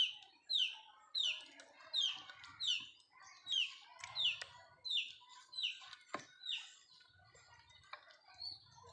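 A chick peeping over and over: short, high, downward-sliding peeps, about three every two seconds, growing fainter near the end.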